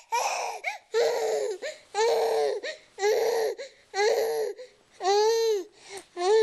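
Baby crying in short wails that come about once a second.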